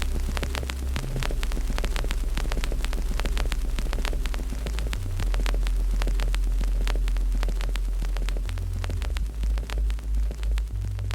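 Wood fire crackling with many quick irregular pops and snaps, over a loud low hum that shifts in pitch a few times and begins to pulse near the end.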